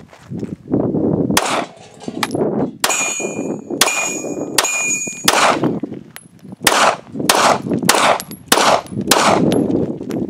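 Ruger Security 9 9mm pistol firing a string of about a dozen shots at an uneven pace, fed from a converted SR9 extended magazine. A few of the shots are followed by a brief metallic ringing.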